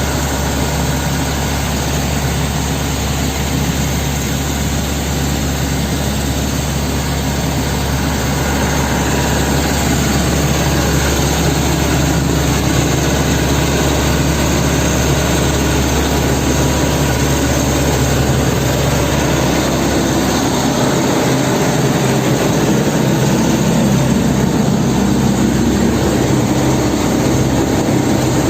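Large pump engine running steadily at high throttle, a continuous heavy engine sound with a deep hum. It grows slightly louder about a third of the way in, and the deepest part of the hum shifts near the end.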